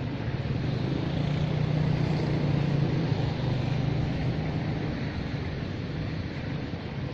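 An engine running with a steady low hum under a rushing noise, swelling a little about a second in and easing off toward the end.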